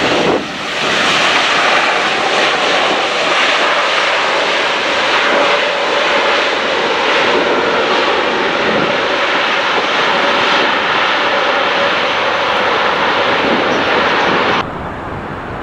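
Twin turbofan engines of an American Airlines Boeing 787 at takeoff power, a loud, steady jet noise with a faint hum in it as the airliner rolls and climbs away. The noise dips briefly at the very start and cuts off suddenly about a second before the end.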